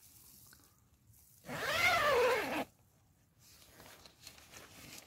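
One long animal cry, about a second long, rising and then falling in pitch, followed by a softer noisy rustle near the end.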